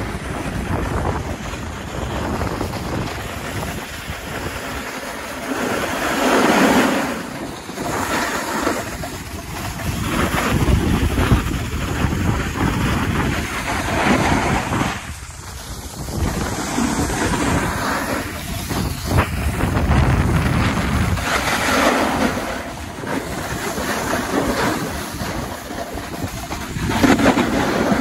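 Wind rushing over the microphone while sliding down a groomed ski slope, with snow hissing and scraping under the edges, swelling every few seconds as the rider turns.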